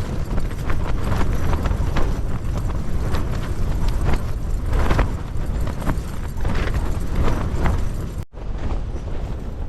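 Gale-force wind battering a Hilleberg Allak 2 tent: the fabric walls flap and snap many times a second over a heavy wind rumble on the microphone, with a brief break near the end.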